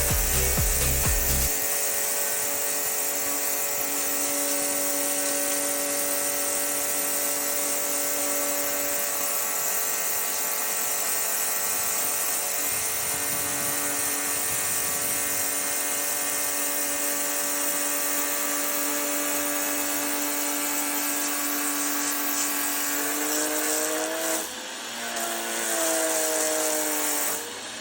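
Electric high-pressure washer running, a steady motor whine over a hiss of spray; its pitch bends and dips briefly near the end.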